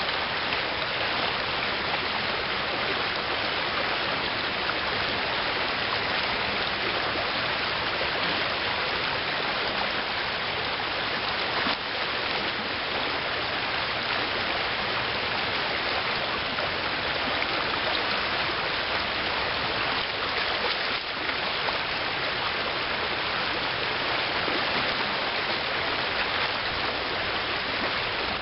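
Steady rush of a shallow river riffle running over gravel.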